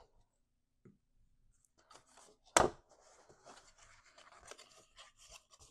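Stiff cardstock rustling and crinkling as it is handled and folded, with one sharp knock about two and a half seconds in, the loudest sound.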